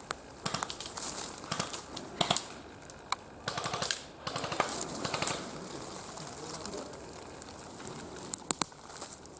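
Irregular rustling and crackling with scattered sharp clicks, including a close pair of clicks near the end.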